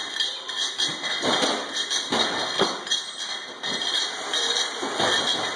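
Automatic bottle labeling machine running, with bottles on its conveyor chain knocking and clattering against each other and the guides in several irregular knocks over a steady mechanical noise.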